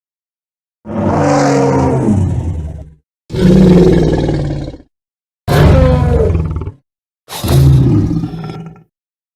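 Godzilla roar sound effects: four separate roars, each about one and a half to two seconds long, with dead silence between them.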